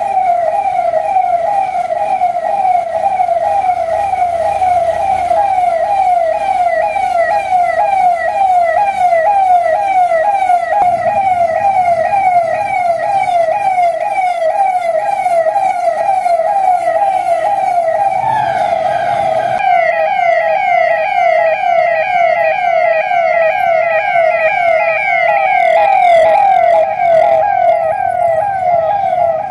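Police vehicle siren sounding continuously: a rapid, repeating wail that falls in pitch several times a second, briefly blurred about eighteen seconds in.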